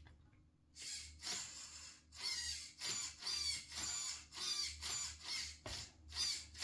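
A 30 kg RC steering servo whirring in a dozen or so short high-pitched bursts as it swings the front wheels back and forth, driven from a servo tester knob.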